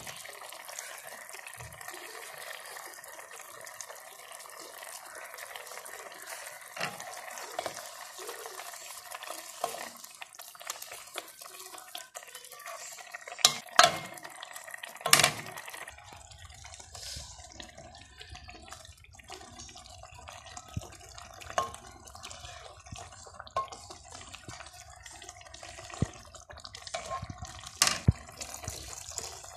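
A ladle stirring a pot of simmering asam pedas curry over a steady watery hiss, with a few sharp knocks of the ladle against the pot midway and one more near the end.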